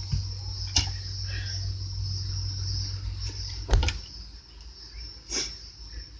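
A steady, high-pitched drone of insects chirring, with three short knocks, the loudest about two-thirds of the way through.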